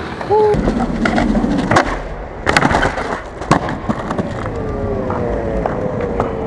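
Skateboard wheels rolling, with sharp clacks of the board striking the ground around two, two and a half and three and a half seconds in.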